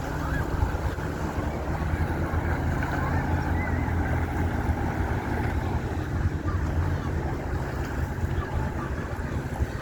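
Motorboat engine running with a steady low rumble as the boat passes.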